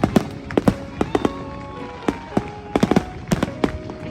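Fireworks bursting in a dense, irregular volley of sharp bangs, several a second.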